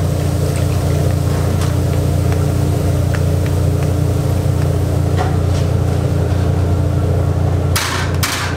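A steady low machine hum, loud and unchanging, with a few light clicks of metal wire strainers. Near the end come two short rattling rushes as crisp fried bugak chips are tipped from a wire strainer into a steel bowl.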